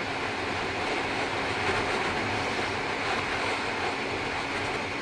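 Steady rush of riding wind on an action camera's built-in microphone, mixed with a Bajaj Pulsar NS200 motorcycle running at a steady highway cruise.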